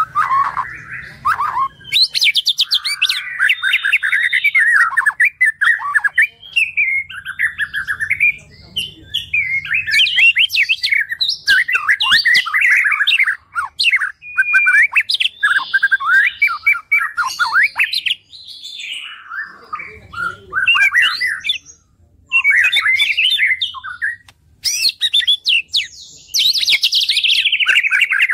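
White-rumped shama (murai batu) singing a fast, varied song of whistles, trills and harsh chattering notes, broken by a few short pauses. Near the end, one long whistle slides down in pitch.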